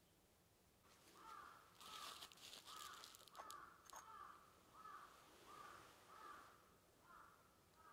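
A crow cawing faintly and repeatedly, about ten caws in a steady series. Midway there is a brief papery rustle and a couple of light clicks as the earthenware dobin teapot's lid is lifted off.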